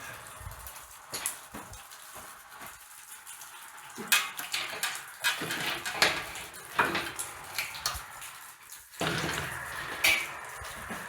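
Metal pieces clinking and clanking as they are handled, a string of sharp light knocks at irregular intervals.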